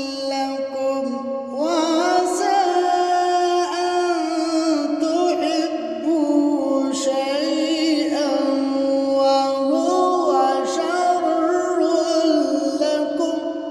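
Background vocal music: layered singing voices holding long, wavering notes, fading out near the end.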